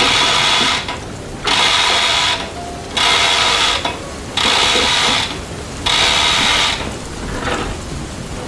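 Manual chain hoist ratcheting as its hand chain is pulled hand over hand, in five pulls of about a second each, lifting a heavy stone block.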